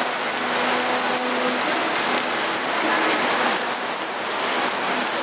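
Heavy rain pouring steadily onto a flooded street, a dense even hiss, with a car driving slowly through the standing floodwater.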